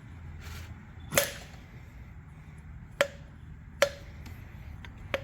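Four sharp metal-on-metal taps at irregular intervals, each with a brief ring, from metal parts or tools striking the cylinder head while sticking valves are checked.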